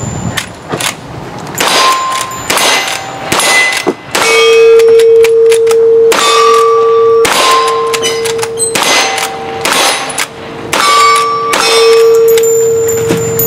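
A string of about ten revolver shots, roughly a second apart, each answered by a ringing clang from the steel pistol targets as they are hit. One low ring holds on under the shots through most of the second half.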